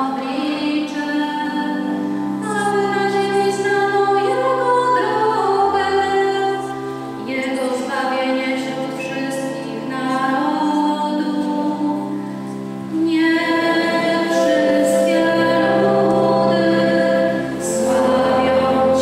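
Sung church hymn: voices singing in choir-like unison, a woman's voice among them, over sustained low accompanying notes. The notes are held and change every second or two, and the singing swells fuller about two-thirds of the way through.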